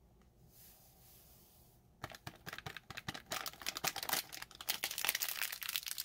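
Cocoa powder pouring from a foil ration packet into a cup with a faint hiss, then from about two seconds in the foil packet crinkling in rapid crackles and clicks as it is shaken empty over the cup.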